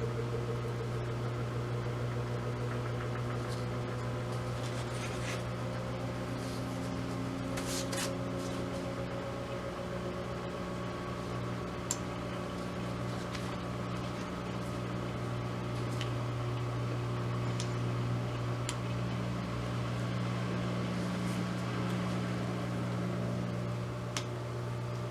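Steady low machine hum, like a fan or appliance running, with a few faint light clicks scattered through it.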